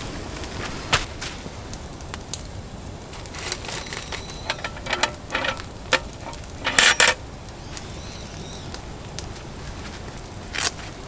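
Scattered small clicks and knocks, a few with a short metallic ring, the loudest clatter coming about seven seconds in.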